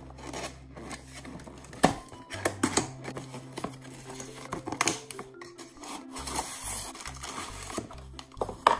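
Cardboard toy box being opened by hand: flaps rubbed, scraped and pulled open, with a few sharp knocks, the loudest about two seconds in and near the end. Background music plays underneath.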